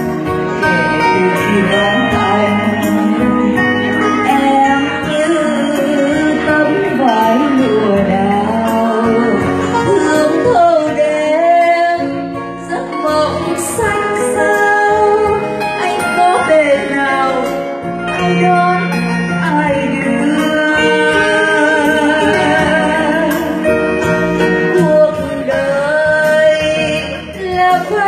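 A woman singing a slow Vietnamese ballad live into a microphone, accompanied by acoustic guitar, with short dips between phrases.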